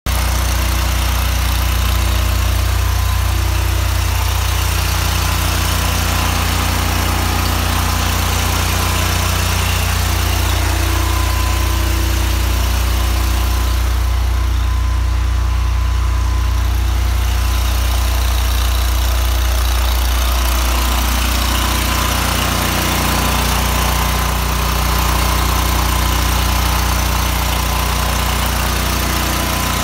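Petrol engine of a van-mounted pressure jetting unit running steadily, a constant low drone.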